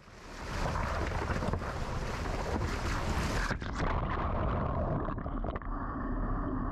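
Fast-flowing creek water rushing and splashing right at the microphone, with the camera down in the stream.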